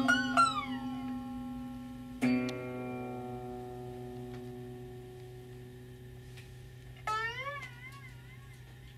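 Free-improvised acoustic music on metal and string instruments. Ringing tones bend and waver in pitch, a struck note about two seconds in rings on and slowly fades, and a short wobbling, gliding phrase comes near the end.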